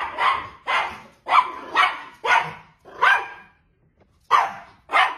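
A small dog barking repeatedly: about eight sharp, high barks, roughly two a second, with a pause of about a second a little after the middle.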